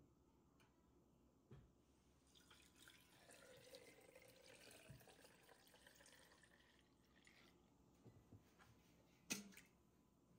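Faint pouring of fresh milk from a stainless steel pail into a funnel strainer lined with mesh cloth, set over a glass jar. The soft liquid sound runs for a few seconds in the middle, and a single short knock comes near the end.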